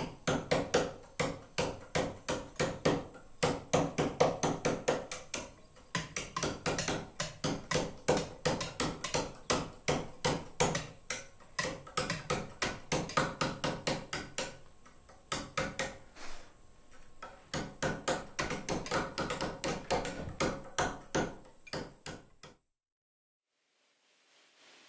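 Hammers striking steel chisels into stone slabs: rapid, irregular taps from two carvers working at once, several strikes a second. The tapping stops near the end.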